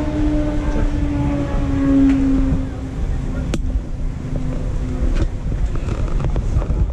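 Racing kart engine running at a steady pitch, then cutting out about five seconds in, over low wind rumble on the microphone. A sharp click about three and a half seconds in.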